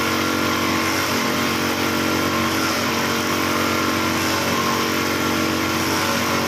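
Steady mechanical hum of an industrial sack-sewing machine and factory machinery running, at a constant level with no change in speed.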